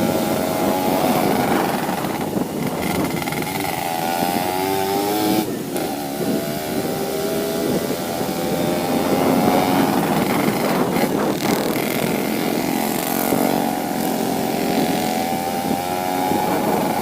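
Yamaha RX-King 135's two-stroke single-cylinder engine running under way, its pitch rising and falling with the throttle, with brief dips three times.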